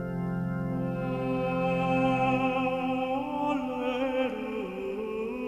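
Slow background music of long held notes that begin suddenly and move to new pitches a few times.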